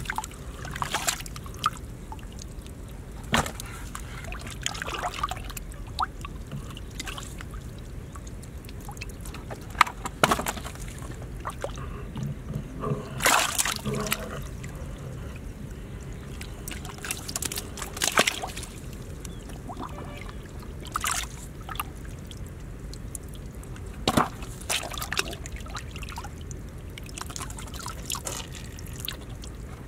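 Muddy water sloshing and trickling as hands and a scoop work through a water-filled mud hole, with sharp splashes every few seconds as water is scooped and poured out.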